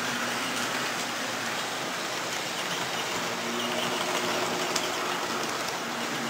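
Model trains running on a layout: the steady running noise of small electric motors and metal wheels on the track.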